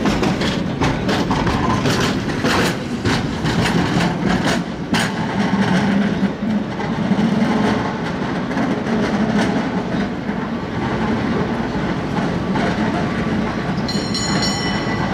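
San Francisco cable car on the California Street line rumbling along its rails, with rapid clattering clicks for the first few seconds before the sound settles into a steadier rumble. A high metallic ringing starts near the end.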